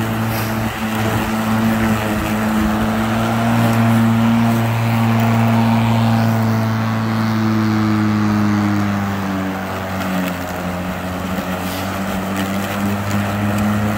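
Greenworks Pro 80V battery-electric lawn mower running under load, its motor and blade humming steadily as it cuts grass. The pitch drops slightly about two-thirds of the way through.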